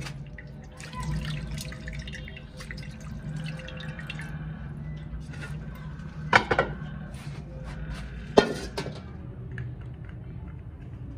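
Hands sloshing and rinsing a small machined steel part in a shallow metal basin of liquid, with dripping and light splashing. Two sharp knocks stand out, about six and eight seconds in.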